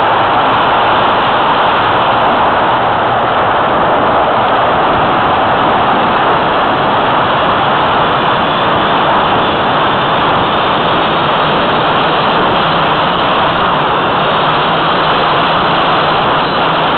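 Steady rush of wind over a keychain camera mounted on the wing of an Easy Glider Pro model glider in flight.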